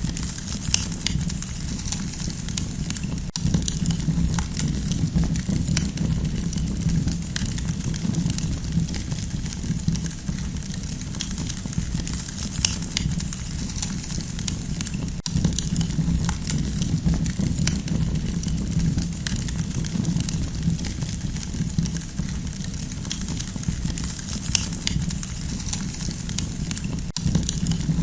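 Campfire burning, with frequent sharp crackles and pops scattered irregularly over a steady low rumble.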